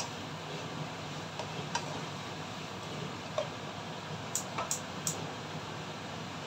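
Bacon and carrot strips sizzling in a wok as a slotted spatula stirs them. The spatula clicks and taps against the pan a few times, with three quick taps about four to five seconds in.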